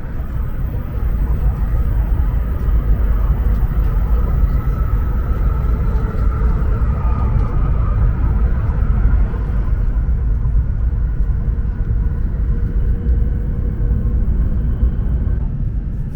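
Steady low rumble of a moving Hokuriku Shinkansen train, with a faint high whine around the middle.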